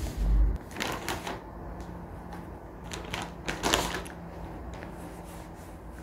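A few heavy bumps as the recording phone is handled, then several short rustles of a paper tissue held up to the face, about a second in and again around three seconds in.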